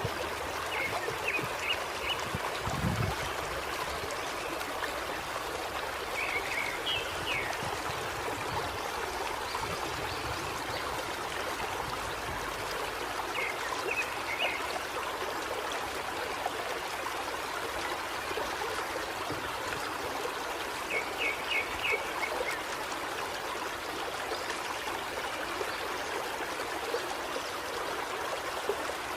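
Khek River water flowing over rocks in a steady rush. A bird calls in short quick groups of three or four chirps, a few times, several seconds apart.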